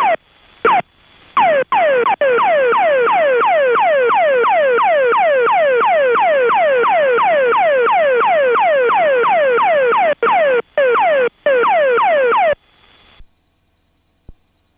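Emergency locator transmitter (ELT) distress tone heard over the aircraft radio on 121.5 MHz: a rapidly repeated falling sweep, about three a second. It cuts in and out briefly near the start and again about ten seconds in, then stops shortly before the end.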